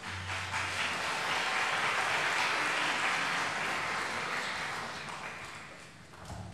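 Audience applauding, building over the first two seconds and then fading away near the end.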